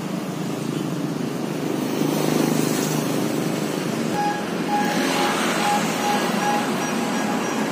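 Street traffic with a motor vehicle engine running close by. From about four seconds in, an electronic beep repeats evenly just under twice a second.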